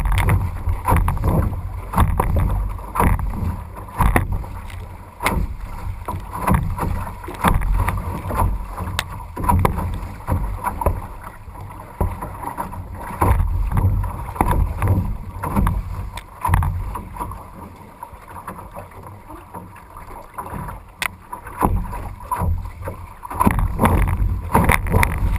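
Wind buffeting the camera microphone in uneven gusts, with choppy waves splashing and knocking against a canoe's hull as it is paddled through rough water.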